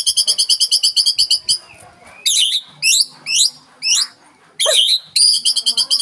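White-rumped shama (murai batu) singing. A fast run of repeated high notes, about ten a second, comes at the start and again near the end, with separate sweeping whistled phrases between.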